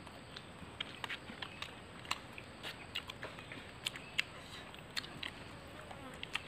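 People chewing food with their mouths close to the microphone, a run of quiet, irregular clicks and smacks.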